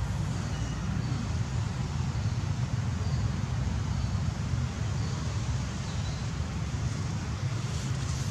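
Steady low outdoor rumble, with a few faint, short high chirps scattered through it.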